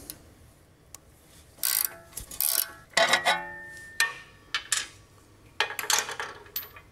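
A steel wrench clinks and clanks against metal suspension parts: several sharp metallic knocks, the loudest about three seconds in, each ringing briefly, with rustles of handling in between.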